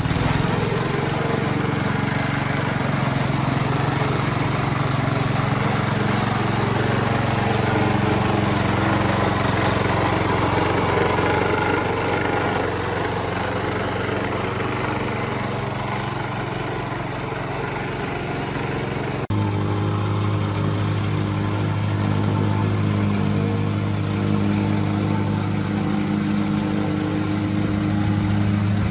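A small petrol engine running steadily under load. About two-thirds through it changes abruptly to a lower, steadier pitch.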